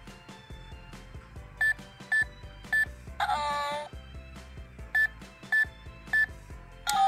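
Toy ATM coin bank safe's keypad beeping as keys are pressed: three short beeps about half a second apart, a short electronic chime, then three more beeps and another chime starting near the end, as a password is entered.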